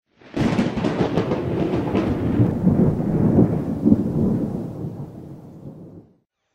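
Thunder, likely a sound effect: a sudden crack that breaks into a crackling rumble, then fades away and stops a little before the end.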